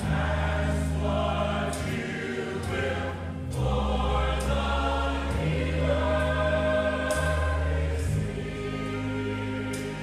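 Church choir singing a gospel song together over steady low instrumental accompaniment, with a brief dip about three and a half seconds in.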